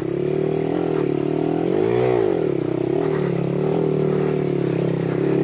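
Monkey bike's small single-cylinder engine running at low revs, revved once about two seconds in, its pitch rising and falling back.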